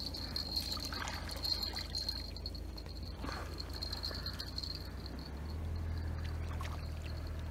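Water trickling and splashing as a freshly caught crucian carp is put into a keepnet in the shallows, with a steady high-pitched trill behind it.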